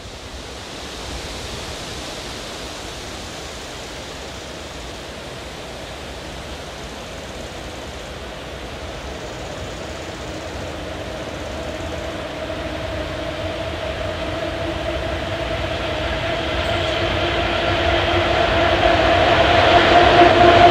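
ET41 twin-unit electric locomotive running light and approaching. A rushing rail noise and a steady droning tone grow steadily louder as it nears, with the drone standing out over the last half.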